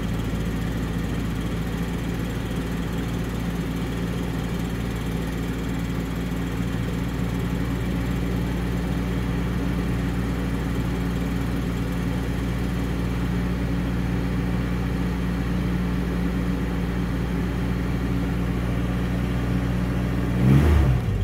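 An older vehicle's engine idling steadily while it warms up after a cold start, then a quick blip of the throttle near the end, its pitch rising and falling back.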